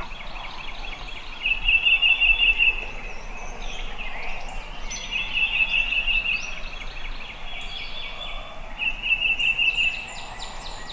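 Wild birds calling: a rattling trill comes three times, each about a second long, with higher chirps from other birds around it.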